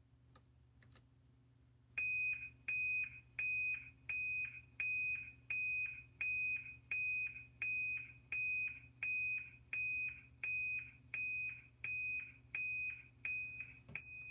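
System Sensor SS24LO horn sounding its 2400 Hz Interrupted tone in slow march time: a high-pitched beep repeating about one and a half times a second, each beep starting with a click. It begins about two seconds in.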